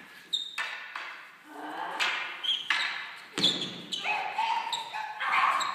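Wooden quarterstaffs clacking against each other and knocking on the stage floor during a staged fight, several sharp strikes at uneven intervals, with short vocal cries from the fighters in between.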